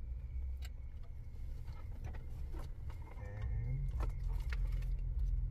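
Scattered light clicks and rattles of plastic wiring connectors and cables being handled and plugged into a car stereo head unit, over a steady low hum.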